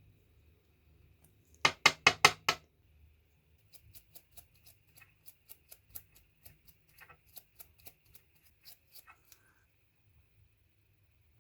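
Five loud, sharp clicks in quick succession about two seconds in, then a long run of fainter ticks, about three a second, that stops well before the end.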